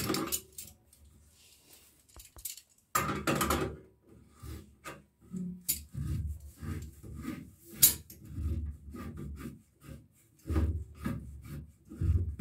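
An old metal sink siphon being unscrewed and worked loose by hand, giving scraping and rubbing of metal on metal with a couple of sharp knocks.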